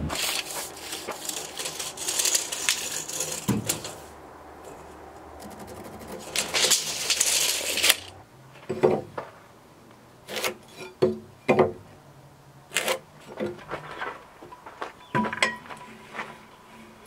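Heavy rough-sawn timber beams scraping and rubbing as they are slid and handled, loudest in two stretches in the first half. This is followed by a run of short, sharp clicks and knocks from a steel tape measure and from handling of the beam while it is measured and marked.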